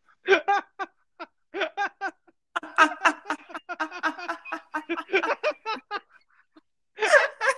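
A person laughing hard in long runs of short, quick 'ha' bursts, with a louder burst near the end.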